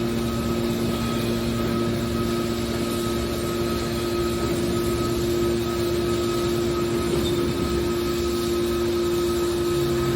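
Hydraulic aluminium baler's motor and pump running with a steady hum of a few held tones over a rushing noise.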